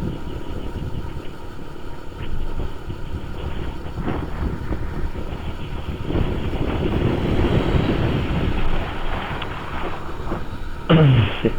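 Motorcycle riding: engine and road noise with wind buffeting the microphone. Near the end comes a brief louder sound that falls in pitch.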